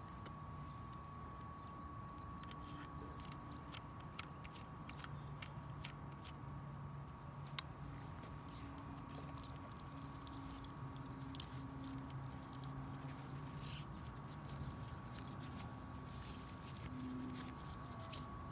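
Faint, irregular small clicks and taps of hands handling a 7/32-inch grinding stone and the mandrel of a 12-volt chain grinder while the stone is threaded on, over a steady faint high tone.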